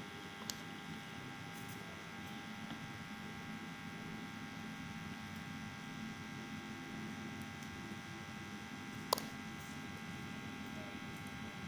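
Homemade soldering gun humming steadily with a faint electrical buzz while it heats the joint, with a single sharp click about nine seconds in.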